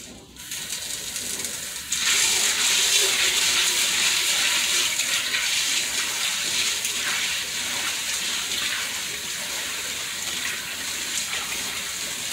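Kitchen tap running into a stainless-steel pot of dried black beans while a hand swirls them, rinsing the beans before cooking. The water starts about half a second in, gets fuller and louder at about two seconds, then runs steadily.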